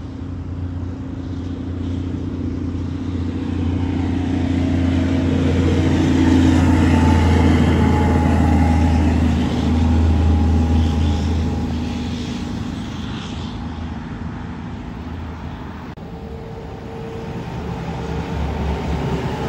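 Diesel semi-trucks driving past on a highway: a tractor pulling a dump trailer goes by, its engine and tyres loudest about a third of the way in and then fading, and a second semi hauling a lowboy trailer approaches and grows louder near the end.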